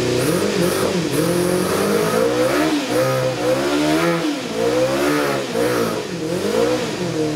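1990 Yamaha FZR250's high-revving 250 cc inline-four engine being blipped on the throttle, the revs climbing and dropping about once a second, then settling back to a steady idle near the end.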